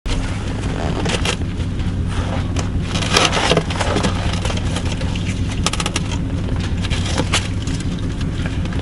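A steady low hum with scattered scrapes and clicks over it. There is a denser patch of scraping about three seconds in and a quick run of clicks a little before six seconds.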